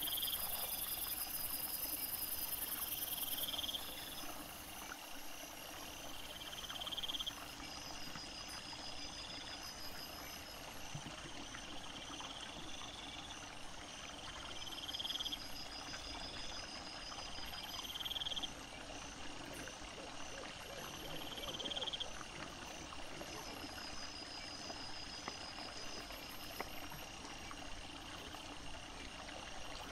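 Night insects chirping: repeated short rising trills about every two seconds, with a higher pulsing trill behind them over a faint rustling background. A loud high hiss runs for the first few seconds, then drops away.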